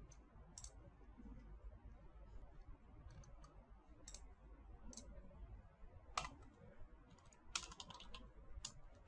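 Faint clicking of a computer mouse and keyboard: a few scattered clicks, then a quick run of keystrokes about seven and a half seconds in.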